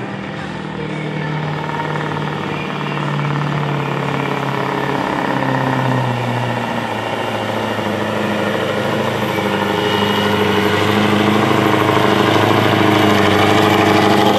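Scania 143M 500's V8 diesel engine running flat out under heavy load as the truck drags a pulling sled, getting steadily louder; its pitch drops a little about five seconds in.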